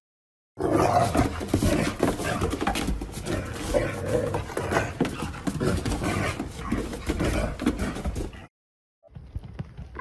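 A dog's rough, noisy vocal sounds, mixed with a rustling background, cutting off abruptly shortly before the end.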